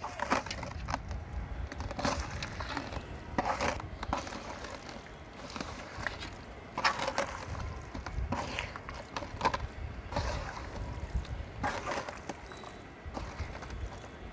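A hand squelching and slapping through fish pieces coated in thick, wet masala marinade in a large metal pot, in irregular strokes as the paste is worked into the fish.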